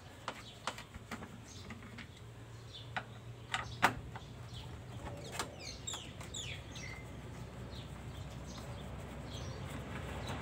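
Scattered sharp plastic clicks and knocks as the lid lock switch assembly of a Samsung top-load washing machine is worked loose by hand, the loudest about four seconds in. Midway, a short run of quick high bird chirps.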